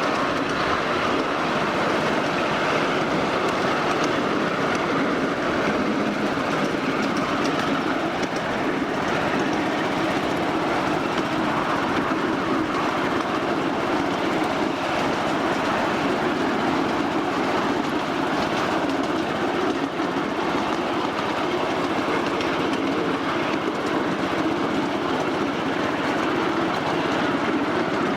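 1/8-scale ride-on miniature railway train running along the track: the steady noise of small wheels on the rails, with faint clicks from the track.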